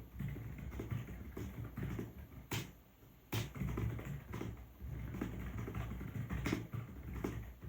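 Typing on a Keychron B1 Pro, a slim scissor-switch keyboard: a quick, uneven patter of soft key clicks with low thuds, pausing briefly just before three seconds in.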